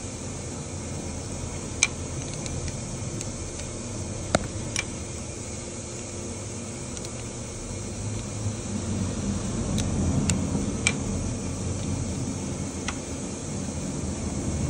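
Steady background noise, growing louder in its lower part from about halfway, with half a dozen sharp metallic clicks scattered through it: an open-end wrench clinking against the clutch cable adjuster and bracket on the motorcycle's engine case.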